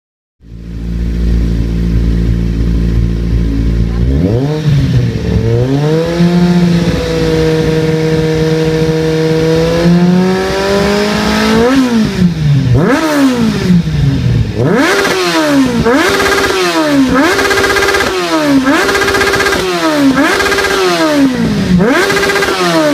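Kawasaki Z750 inline-four engine running through an Akrapovic carbon slip-on exhaust. It idles at first, then is revved up and held at higher revs for several seconds. From about halfway on it is blipped over and over, roughly one rev per second, each rev rising and falling back.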